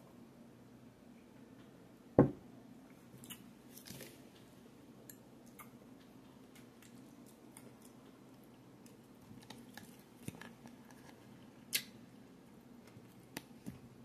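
A drinking glass set down on the table with one sharp thump about two seconds in, followed by quiet mouth sounds of swallowing and chewing with scattered small clicks.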